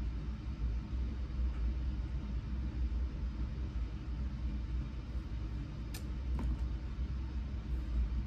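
Steady low rumble throughout, with a faint click about six seconds in and a weaker one just after.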